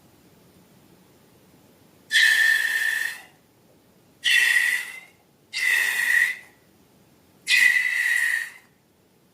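Air squealing out through a stretched balloon neck in four short bursts, each a steady high whistle with a hissy edge.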